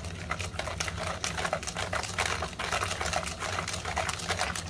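Metal wire whisk beating creamed butter and sugar in a plastic bowl: a rapid, steady run of clicks and rattles as the wires strike the bowl, several a second, over a low steady hum.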